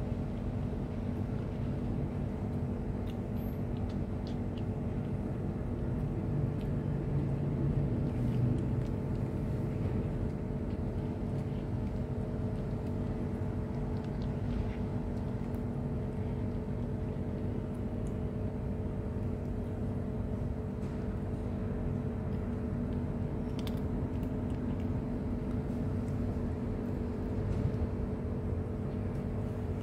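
Steady low rumble with a constant mechanical hum, as from a running engine or machine, with a few faint clicks scattered through it.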